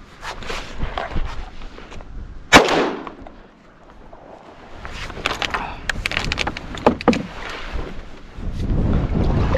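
A single close, very loud shot from a Beretta A300 Ultima semi-automatic shotgun about two and a half seconds in, with a short ringing echo. A few sharp clicks and knocks follow, and wind buffets the microphone near the end.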